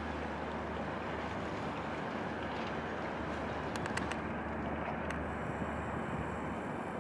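A tugboat's engine drones steadily under a wash of wind and water noise. A few faint clicks come around four and five seconds in.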